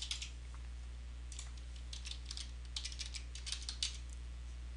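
Computer keyboard typing: a short run of keystrokes right at the start, a pause of about a second, then several quick runs of keystrokes as digits are typed in. A steady low hum sits underneath.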